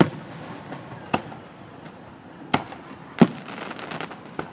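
Aerial fireworks display: sharp bangs of shells bursting about once a second, the loudest a little past the middle, followed by a short spell of crackling.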